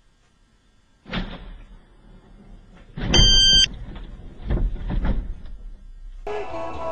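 Car crash: a knock about a second in, then a loud crash about three seconds in as a sedan rolls over onto its roof into the parked car, with a short high electronic beep over the impact, followed by further knocks and scraping as the overturned car settles. Music begins near the end.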